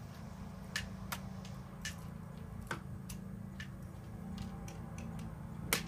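Sharp, irregularly spaced clicks and snaps of packing wrap being pulled off parts of a cuckoo clock, with a louder snap near the end, over a steady low hum.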